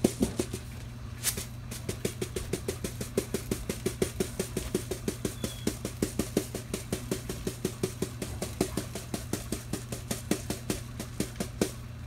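Quick, even tapping, about five taps a second, as a breadcrumb canister is tapped and shaken to sprinkle panko crumbs, over a steady low hum.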